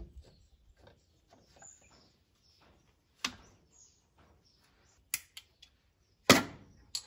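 A new piston being tapped down through a ring compressor into its cylinder liner in a Mitsubishi Fuso 6D14 diesel, with the end of a hammer handle. There are a few light knocks from about three seconds in, then a sharper knock a little past six seconds and another just before the end.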